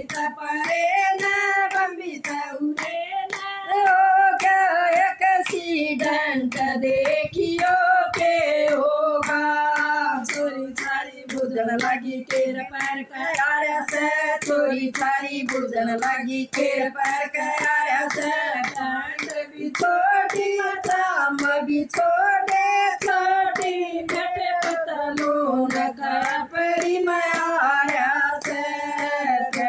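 Several women singing a folk song together while clapping their hands to a steady beat.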